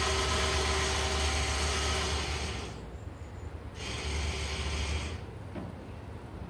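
Battery-powered electric winch motor of a boat loader running under load as it hauls a dinghy up onto a pickup's rack: a steady whirring hum in two runs, about two and a half seconds, a pause of about a second, then about another second.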